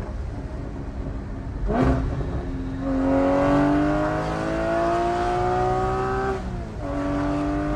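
Porsche 981 GT4's 3.8-litre flat-six, on catless headers with the exhaust valves open, pulling hard: the revs climb steadily for about four seconds, drop in an upshift, then pull again near the end.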